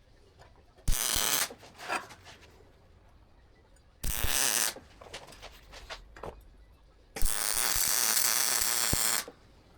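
Welder arcing in three bursts: two short tacks of about half a second, then a longer run of about two seconds near the end. Each starts abruptly with a click and holds a steady, noisy hiss until it cuts off.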